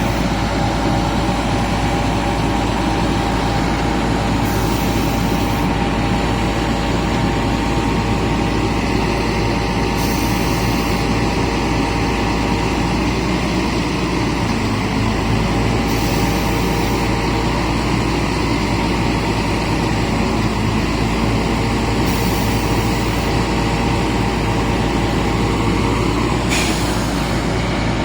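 Atlas 330.1 crane's hydraulic pump running under engine drive, giving steady tones over a low mechanical rumble. This is the abnormal hydraulic pump noise being checked, which by now is only slight.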